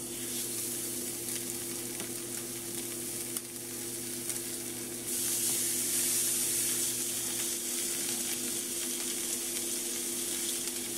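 Seasoned tilapia fillets sizzling as they are laid into a hot non-stick skillet lightly sprayed with olive oil. The sizzle starts as the first fillet goes in and gets louder about five seconds in as the second fillet is added, over a steady low hum.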